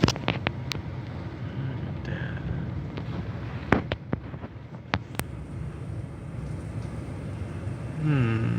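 Heavy thunderstorm rain and wind beating on a truck, with scattered sharp knocks on the body, several in the first second and a few more midway.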